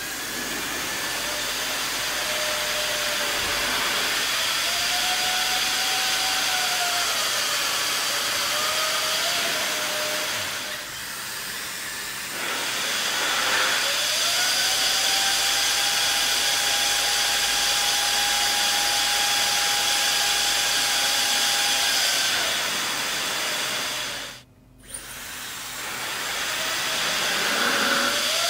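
Hair dryers running, blowing a steady rush of air with a motor whine that rises as each one spins up. The sound drops back about 11 seconds in, then rises again with a new whine, and cuts out for a moment about 24 seconds in before starting once more.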